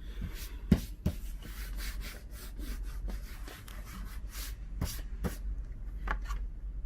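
Hands handling the laptop's screen panel: a run of short scuffing, rubbing strokes against plastic and glass, with two sharper knocks about a second in.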